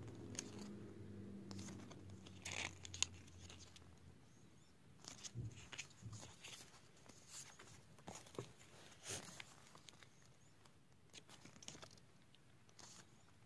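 Pages of a glossy album photobook being turned by hand: scattered soft paper flicks and rustles, faint. A low hum fades out over the first few seconds.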